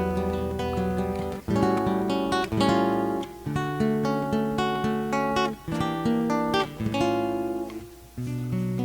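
Acoustic guitar playing strummed chords over held bass notes: an instrumental passage with no singing, with brief breaks between phrases about a second and a half in and near the end.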